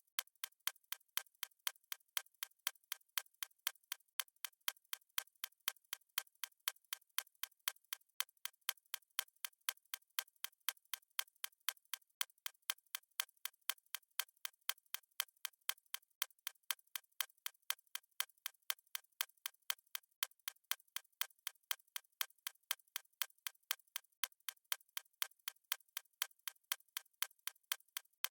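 Clock-style ticking sound effect of a countdown timer: a steady, even run of sharp, thin ticks with no low end.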